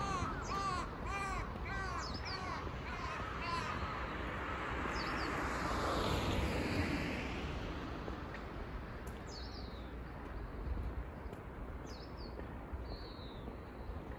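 A crow cawing in a rapid run of about ten caws over the first few seconds, followed later by a few short, high, down-slurred chirps from small birds.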